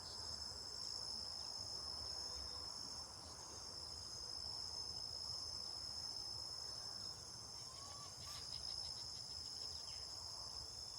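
Steady, high-pitched chorus of insects chirring, faint and unbroken.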